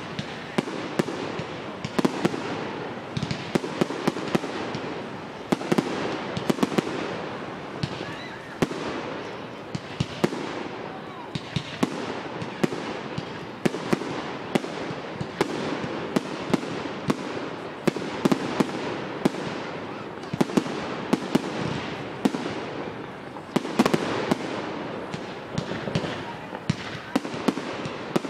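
Fireworks display: aerial fireworks firing and bursting, sharp bangs every second or so over continuous crackling, with a denser run of louder bangs about twenty-four seconds in.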